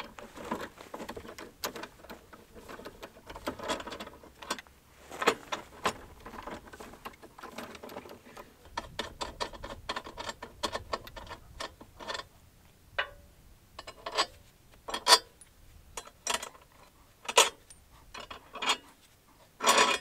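Metal hand tool clicking and clinking as a wrench is worked on a Jeep Wrangler's rear spare-tire carrier. The clicks come irregularly, dense in the first half, with a few sharper, louder clinks in the second half.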